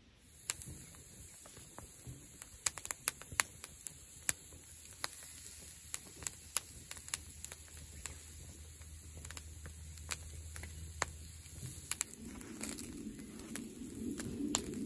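Wood and charcoal fire in a grill crackling with frequent sharp pops over a steady hiss of beef strips sizzling on the wire grate. The fire grows louder, with a low rush, near the end.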